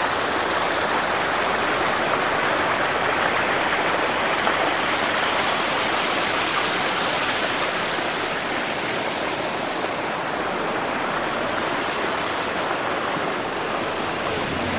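Steady, even rushing noise with no rhythm or distinct events.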